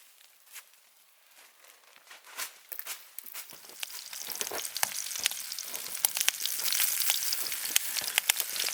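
Burgers frying in a pan over a campfire: a few scattered pops at first, then from about three seconds in a dense sizzle with crackling spits that grows louder.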